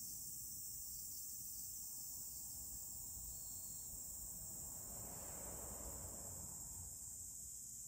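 Steady high-pitched insect chorus. About five seconds in, a faint swell of lower-pitched noise rises and fades.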